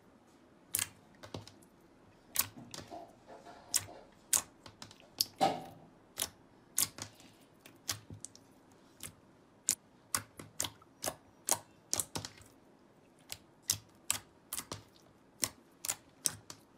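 Purple metallic slime being peeled, stretched and pressed by hand, making irregular sticky clicks and pops, about one or two a second.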